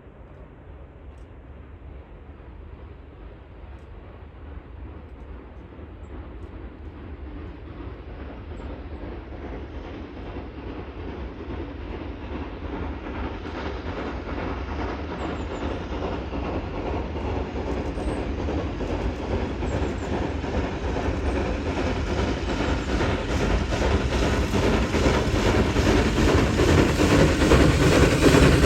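Train approaching along the line, its running sound growing steadily louder.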